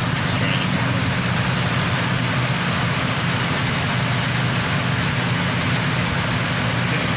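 Steady rumble of a vehicle under way, with a constant low engine hum that does not change in pitch.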